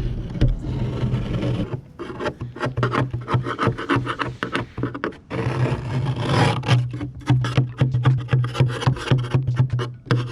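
Wood rubbing, scraping and knocking in quick irregular strokes as a wobbly wooden table leg is worked and glued at its joint, over a steady low hum.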